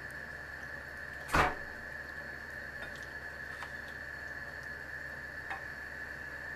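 A frying pan and metal tongs being handled over a plate: one sharp knock about a second and a half in, then a few faint clicks. Underneath is a steady hiss with a high whine.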